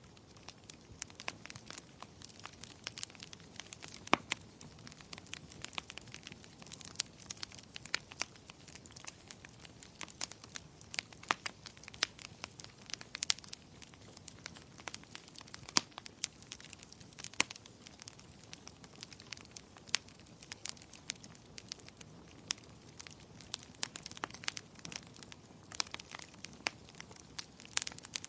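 Wood fire crackling in a fireplace: irregular sharp pops and snaps, several a second, over a soft steady hiss of the flames. A few louder pops stand out, about four seconds in and again near the middle.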